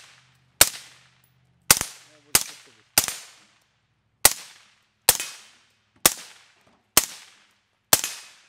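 Suppressed AR-15-style rifle fired semi-automatically: nine sharp shots at an uneven pace, roughly one a second, each with a short fading echo.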